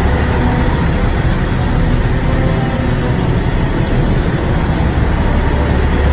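Steady, loud rumble and hiss of a running vehicle.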